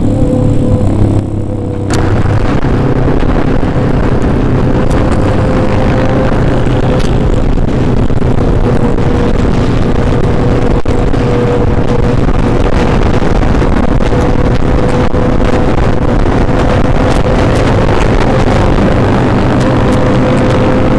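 Motorcycles riding in a group at a steady cruise: a constant engine note with road and wind noise, the sound turning fuller and brighter about two seconds in as the microphone is opened.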